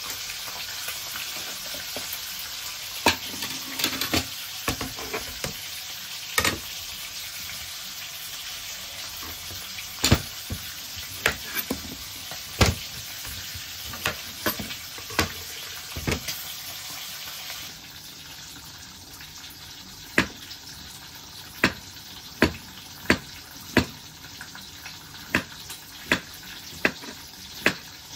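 Food sizzling steadily in a frying pan, with sharp knife clicks on a plastic cutting board as a plantain is peeled and then cut into rounds. The sizzle drops a little about two-thirds of the way through, and the last third brings an even run of slicing strokes, a little faster than one a second.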